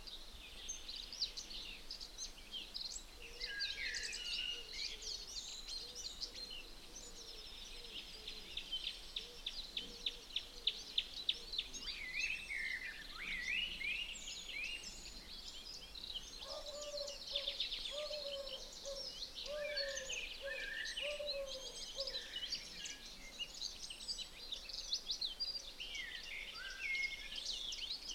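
Songbirds singing and calling: a chorus of high chirps and whistles, with a rapid trill about a third of the way in and a lower run of short repeated notes a little past the middle.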